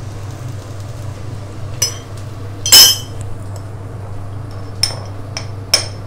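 Steel kitchen utensils clinking about five times against a pan or containers. The loudest clink comes about three seconds in and rings briefly. A steady low hum runs underneath.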